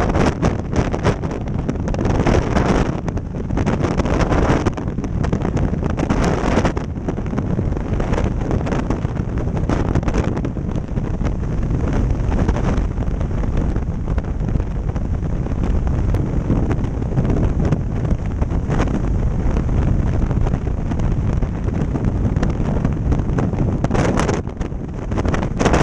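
Freefall wind blasting over a head-mounted camera's microphone: loud and steady, heavy in the low end, with gusts that flare up every few seconds and again near the end.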